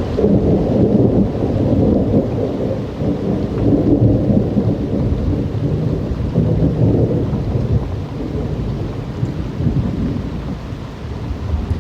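A long, rolling rumble of thunder over steady rain. The rumble is loudest in the first few seconds and slowly dies down toward the end.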